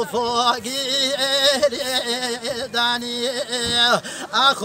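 A man singing a Hawrami Kurdish song with no instruments, holding long notes with a wavering, ornamented line. He sings in short phrases with brief breaks between them.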